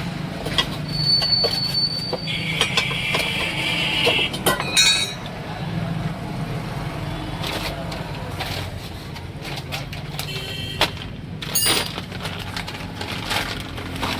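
Steady low vehicle hum with scattered knocks and clanks, and a brief high-pitched tone for about two seconds starting about two seconds in.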